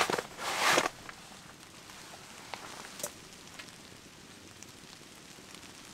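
Rustling and crunching of boots and clothing for under a second, then a quiet steady hiss with a few faint, scattered crackles from a wood fire burning in a small titanium wood stove.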